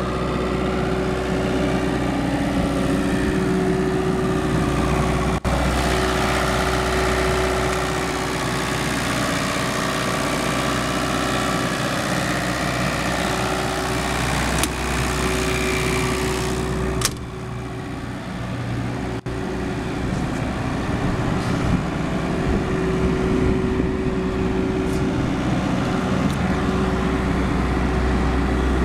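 Diesel engine of a MultiQuip DCA-25SSI 25 kVA generator set running at a steady speed, a constant hum with a steady tone in it. The sound gets a little quieter about seventeen seconds in.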